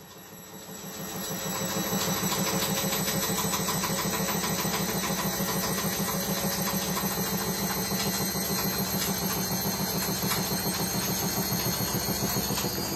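Beko WRE6512XWWE front-loading washing machine running at spin speed with a steady hum and a fast, even rattle, fading in over the first couple of seconds. The rattle is the heavy vibration during the spin that the owner complains of.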